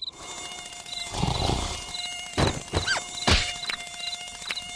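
Cartoon mosquito buzzing with a steady whine while high chirps repeat in the background. Around the middle come several sharp hits and a sliding whistle.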